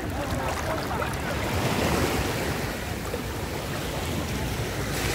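Seawater washing around a camera held at water level, with small waves sloshing and wind buffeting the microphone.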